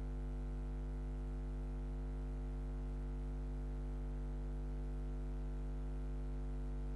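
Steady electrical mains hum, a low buzz that never changes, with no sounds of the game audible over it.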